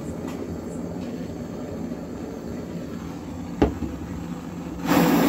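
Butane blowtorch flame burning steadily, with a sharp click about three and a half seconds in and a louder rush of noise near the end.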